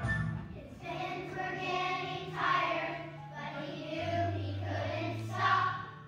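A choir of young children singing together in drawn-out phrases over instrumental backing music.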